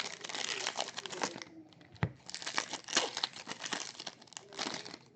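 Plastic wrapping being crinkled and torn while a sealed trading-card box or pack is opened, in two long stretches with a short pause and a single low knock about two seconds in.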